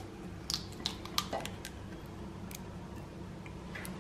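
A few light clicks and clinks of kitchen utensils against bowls and cups, scattered through the first half and once near the end, over a low steady hum.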